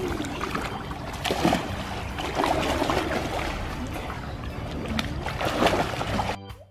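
Pool water splashing and sloshing as swimmers in mermaid-tail monofins kick and dive near the pool edge. Near the end it cuts off suddenly and gives way to organ-like music.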